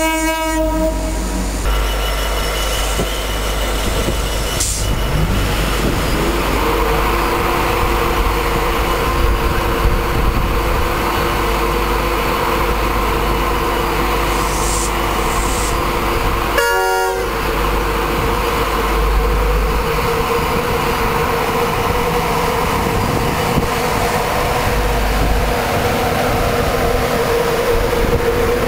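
A train horn sounding at the very start, then a steady hum from a Class 91 electric locomotive standing at the platform. About halfway through, a short, choppy horn blast comes from an unseen train.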